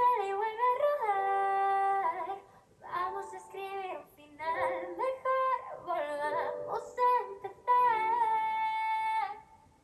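A woman singing a slow melody in phrases with long held notes and short breaks between them.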